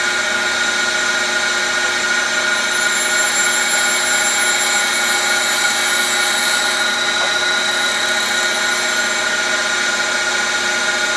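Cylindrical grinder running steadily, its grinding wheel taking a light finishing pass on a steel lathe shaft: a steady whine made of several even tones over a hiss, the hiss a little stronger through the middle.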